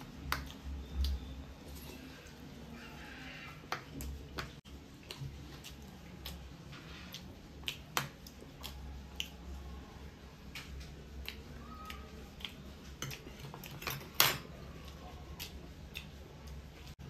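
Scattered light clicks and clinks of dishes and eating utensils during a meal, with one sharper clack about fourteen seconds in.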